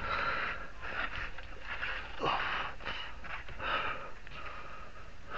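A man breathing heavily, several noisy breaths about a second apart, with a single light knock about two seconds in.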